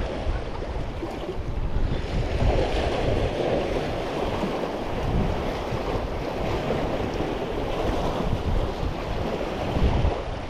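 Wind buffeting the microphone, with ocean waves washing and breaking in a steady, noisy wash that swells and eases.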